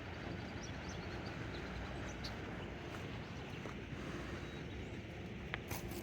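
Outdoor pond-side ambience: a steady low background hiss with faint, short bird chirps now and then, and two light clicks near the end.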